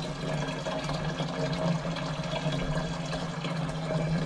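Apple juice pouring in a steady stream from a bottle into a large, partly filled jug, splashing into the juice already inside.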